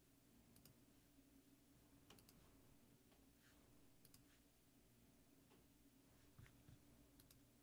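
Near silence with faint computer mouse clicks, about ten of them scattered through, some in quick pairs.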